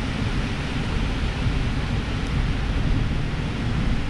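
Storm wind gusting through tall conifers and buffeting the microphone, with rain falling: a steady, heavy rushing noise with a rumble underneath.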